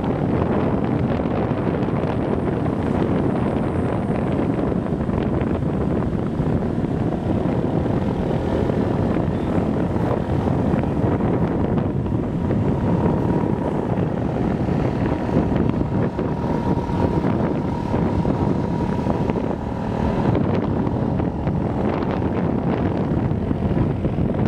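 Motorbike engine running while riding uphill, heavily buffeted by wind noise on the microphone; the sound stays steady throughout.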